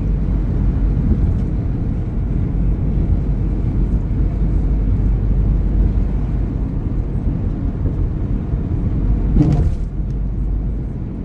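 Steady low rumble of tyres and engine from a car driving along the road. A brief louder burst of noise comes about nine and a half seconds in.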